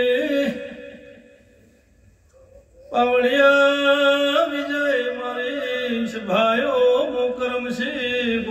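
A man chanting a devotional melody into a microphone, drawing out long held notes with slow wavering ornaments. The voice dies away about a second in and comes back strongly about three seconds in.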